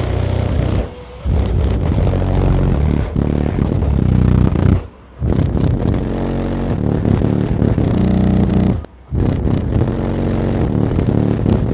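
Bass-heavy music played very loud through a car's subwoofer system of nine CT Sounds EXO subwoofers driven by three B2 Audio M1 amplifiers. The music cuts out briefly about a second in, near five seconds and again near nine seconds.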